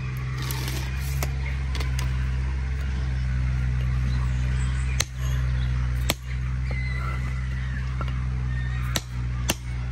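A steady low engine hum from running machinery, with a few sharp knocks, two about five and six seconds in and two near the end, as concrete blocks are set on the course and tapped down with a hammer.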